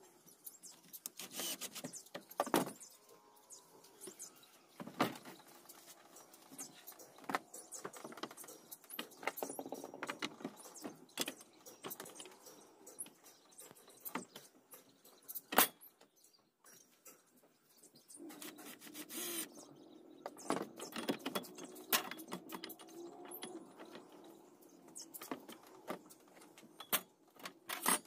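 Workbench hardware fitting: a cordless drill driving screws into the roller brackets of a sliding cabinet door, and metal parts and a sliding-door track being handled and laid on the panel. Many sharp clicks and knocks, the loudest about halfway through, with denser rattling and a short steady whirr in the later part.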